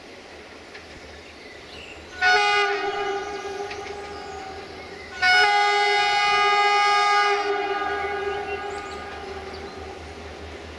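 Train horn sounding two long blasts, the first about two seconds in and the second about five seconds in, each with a loud start and then held.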